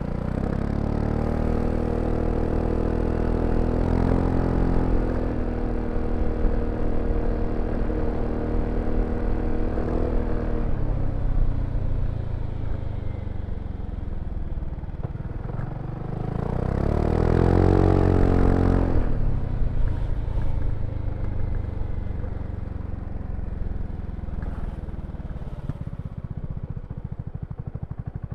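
BMW C400X scooter's single-cylinder engine pulling away and holding speed, easing off, then accelerating hard again about two-thirds of the way through before dropping back to a low, even putter near the end.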